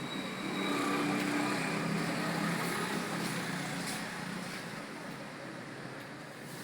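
A motor vehicle engine passing by, swelling about a second in and slowly fading over a steady background of traffic noise, with a few faint keyboard clicks from typing.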